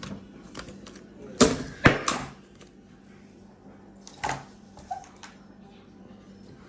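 Sharp clicks and knocks of laptop screen parts being handled during a screen swap: three close knocks about a second and a half in, another just past four seconds, with lighter clicks between.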